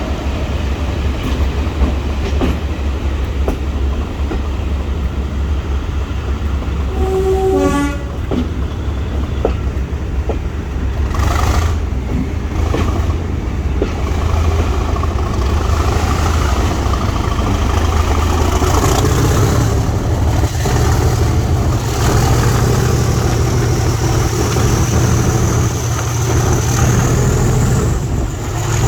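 Class 37 diesel-electric locomotive with its English Electric V12 engine running, and a short horn blast about eight seconds in. From about nineteen seconds the engine note steps up and a high whistle climbs steadily, as the locomotive powers up.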